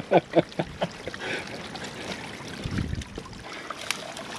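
Hands digging into a beaver dam's packed sticks and mud, with scratching and rustling over trickling water and a sharp stick snap near the end.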